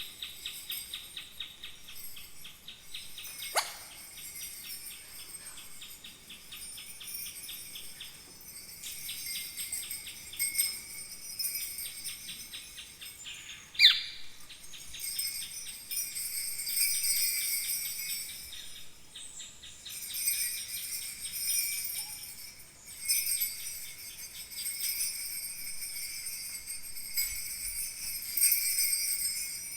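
Kaskawillas, Mapuche bronze bells, jingling in shimmering swells that imitate falling water, over a steady, rapidly pulsing insect-like chirping. Two quick falling whistles cut through, the louder one about 14 seconds in.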